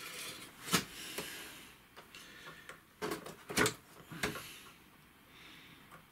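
A few light clicks and taps of hands handling small parts while fitting a replacement sensor and its screw onto a scooter's throttle body: one click under a second in, then a cluster of taps around the middle.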